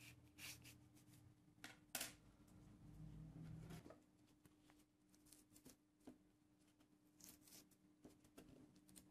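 Faint handling noises of fingers working an old, brittle leather tool-box handle against a wooden board: scattered small clicks, scrapes and rustles, with a sharper click about two seconds in, over a low steady hum.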